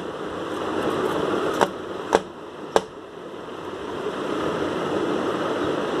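A woodpecker tapping its beak against the plant three times, about half a second apart, over a steady background hiss.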